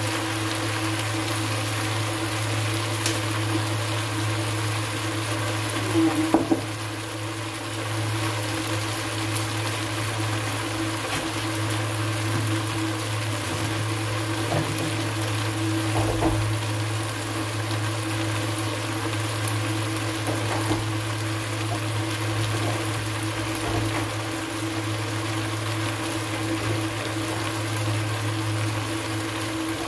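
A steady low mechanical hum with a hiss over it, with a few soft knocks and clicks; a short cluster of louder knocks about six seconds in.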